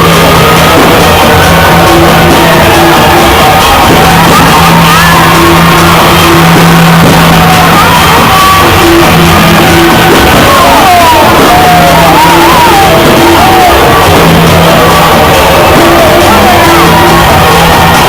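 Loud, distorted music with a bass note that keeps switching on and off, and shouting voices over it.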